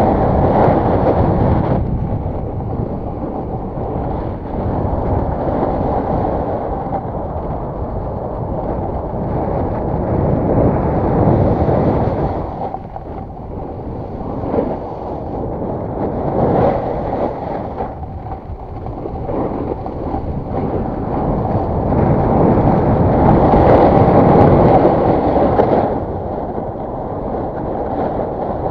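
Wind rushing over the microphone of a moving rider, mixed with a snowboard sliding and scraping over groomed snow. The noise swells and eases with speed and turns, loudest near the start, around the middle and again toward the end.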